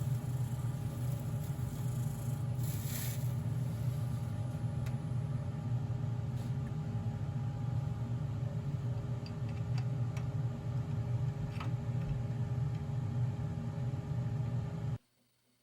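Wood lathe running steadily: a motor hum with a few faint ticks, cutting off suddenly near the end.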